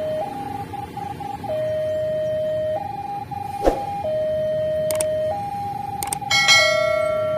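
Railway level-crossing warning alarm sounding: an electronic two-tone signal stepping between a lower and a higher tone every second or so. A sharp knock comes about three and a half seconds in, and a brief ringing tone about six and a half seconds in is the loudest moment.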